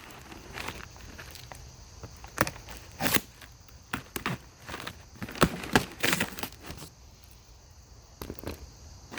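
Cardboard box being opened by hand: a run of sharp rips, crackles and knocks of cardboard and packing, busiest in the middle and quieter near the end.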